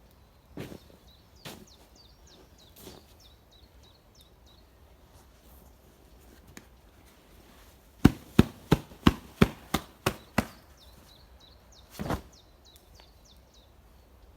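Eight sharp knocks in quick succession, about three a second, with a few single thuds before and after them. A small bird sings in short high chirps in the background.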